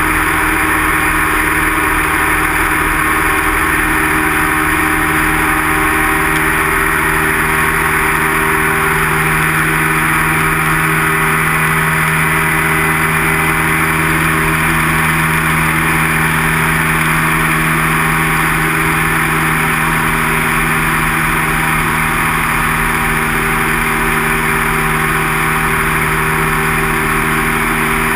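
A single-engine light aircraft's piston engine and propeller running steadily in flight, heard from inside the cockpit, with air rushing past the cabin. The engine's low note firms up slightly about nine seconds in.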